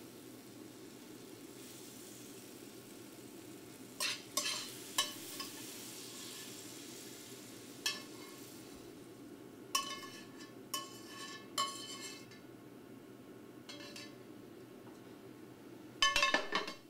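Metal tongs clinking and scraping against a stainless steel sauté pan as sautéed spinach and tomatoes are lifted out onto a plate: scattered single clinks, with a quick flurry of them near the end.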